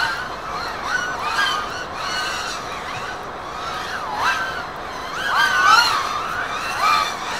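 Several racing FPV quadcopters flying, their motors and propellers whining together, the pitch swooping up and down as throttle changes.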